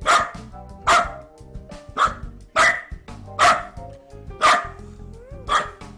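A corgi barking loudly and repeatedly, about seven sharp barks roughly one a second: alarm barking from a dog that seems frightened.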